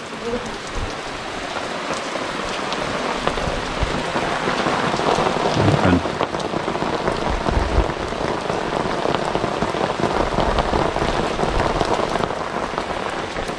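Heavy rain falling very hard, a dense, steady patter of drops.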